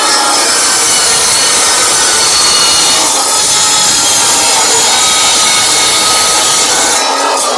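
Metal-cutting miter saw with a steel blade cutting through thin-walled steel pipe: a loud, steady cutting screech with ringing high tones, easing off about seven seconds in.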